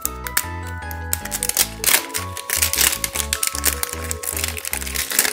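Paper wrapping of a toy capsule crinkling and tearing as its tear strip is pulled off, in many short crackles. Background music with a steady bass line plays under it.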